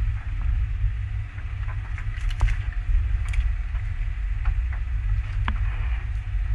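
Steady low motor rumble aboard a fishing boat, with scattered light clicks and knocks as a handline is hauled in hand over hand and worked at the rail.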